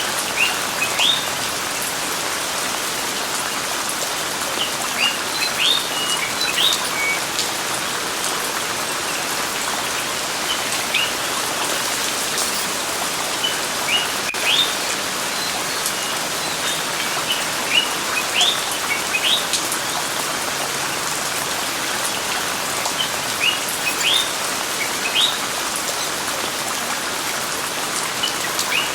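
Steady rain with small birds chirping over it: short rising chirps in little clusters every few seconds.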